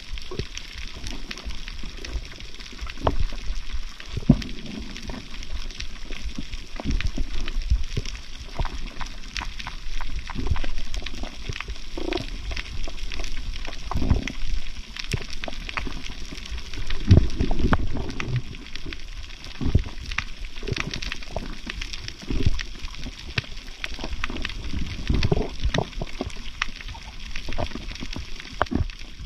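Underwater reef ambience heard through a camera housing: a steady scatter of sharp clicks and crackles over low, surging rumbles of moving water, the heaviest surges about halfway through.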